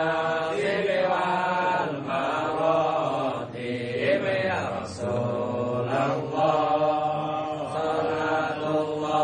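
Group of men chanting an Islamic recitation in Arabic in unison, long held notes with a couple of brief breaks.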